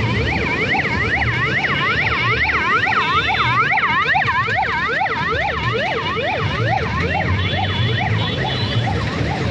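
Several emergency-vehicle sirens sounding together, each in fast rising-and-falling yelps, overlapping at different pitches and speeds. The quicker ones cycle about three times a second and the lower ones more slowly, over a low rumble of engines.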